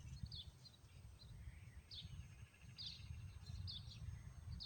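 A bird chirping, a few short high chirps spaced about a second apart, over a faint low rumble.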